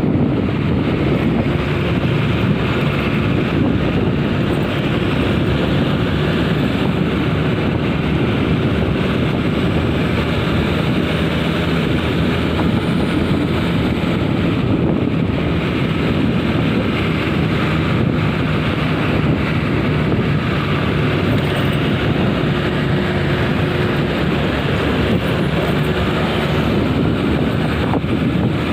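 Steady noise of a vehicle on the move: a low engine drone and road rumble, with wind buffeting the microphone.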